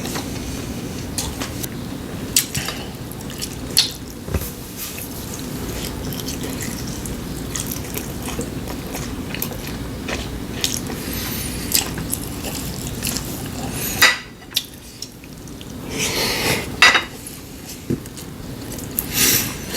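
Dishes and metal utensils clinking and scraping, with sharper clatters about fourteen, seventeen and nineteen seconds in, over a steady background noise.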